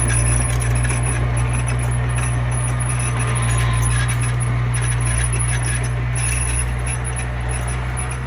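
Komatsu mini bulldozer's diesel engine running steadily with a deep hum, with a thin high whine above it and a few small clanks.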